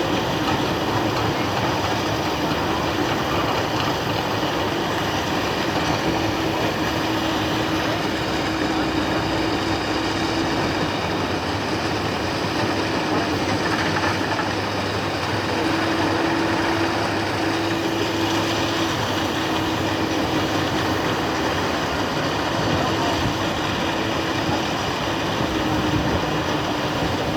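Excavator's diesel engine running steadily, with a dense, even noise and a low hum that comes and goes.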